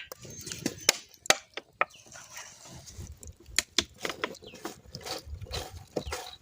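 Irregular sharp knocks and clicks, spaced unevenly, over a low rumble.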